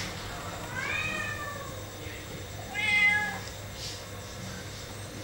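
A kitten meowing twice, a short arching call about a second in and a louder one about three seconds in.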